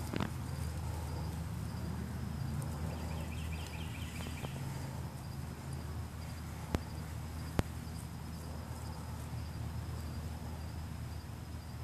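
Insects trilling steadily over a low, steady hum, with a short burst of faster chirping about three seconds in and two sharp clicks near the middle.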